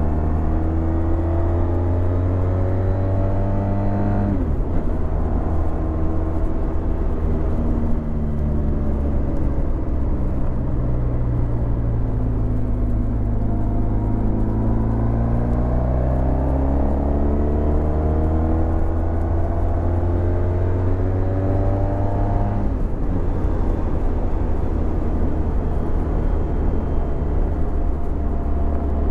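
Honda VFR1200X Crosstourer's V4 engine running through an Akrapovic titanium exhaust while riding. The revs climb and fall back sharply about four seconds in, ease off and climb again through the middle, and fall back sharply once more near twenty-two seconds. Steady wind rush runs underneath.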